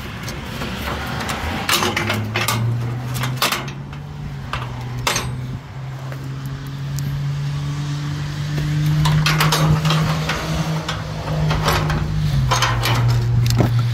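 Scattered metal clicks and clanks of a ratchet tie-down strap and its hooks being released from a car's wheel on a steel car-hauler trailer deck. Under them is the steady hum of an idling 6.0 Power Stroke diesel, which rises slightly in pitch midway and settles back.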